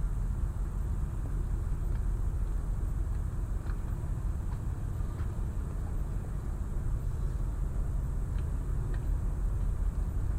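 Steady low rumble of engines and vehicle traffic around a harbour, with a few faint ticks.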